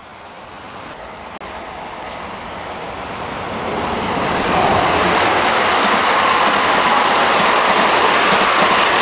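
N-gauge model train running along the track close by: a rolling rumble and rattle from its wheels and motor that grows steadily louder as it approaches, then holds steady as it passes.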